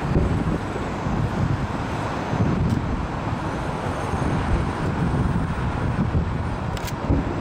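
Distant aerial fireworks going off as dull low booms every second or two over a steady low rumble.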